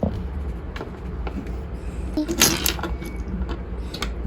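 A few light clicks and taps of plastic Lego pieces and minifigures being handled, spaced irregularly, over a low steady hum.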